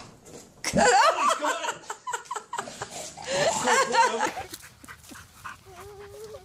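A rubber ball thuds against a bulldog puppy's head, followed by bursts of laughter.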